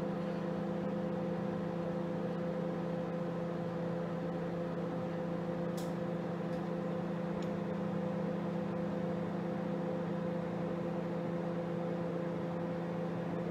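Microwave oven running with a steady hum, heating eggs in a microwave egg poacher, with a single click about six seconds in.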